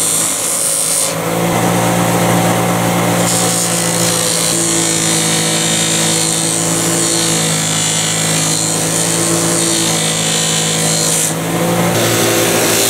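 Bench buffer running steadily with a motor hum, steel pliers pressed against its spinning cloth buffing wheel charged with tripoli compound. The high rubbing hiss eases about a second in and comes back near the end.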